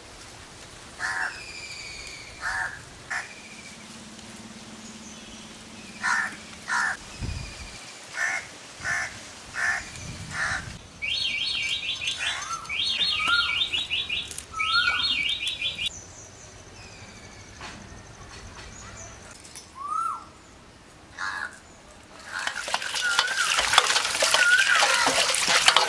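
Crows cawing again and again, with smaller birds chirping and giving short rising-and-falling calls, and one low thump about seven seconds in. Near the end, water splashing and sloshing loudly as hands wash cut fish in a bowl.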